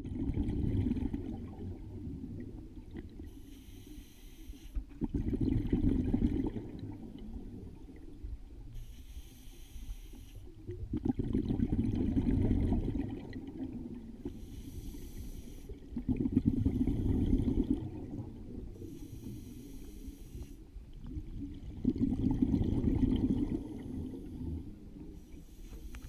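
Scuba diver breathing through a regulator underwater: a short hiss on each inhale, then a louder, longer bubbling rumble of exhaled air, the cycle repeating about every five to six seconds.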